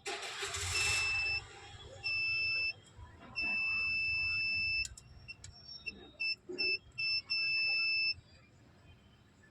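Piezo buzzer of a homemade laser security alarm sounding a steady high-pitched tone that switches on and off: three longer tones, then several quick short beeps and one last tone. The buzzer sounds whenever the laser beam to the sensor is interrupted. A brief rustle at the start.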